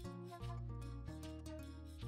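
Instrumental background music with a steady beat and a held bass line.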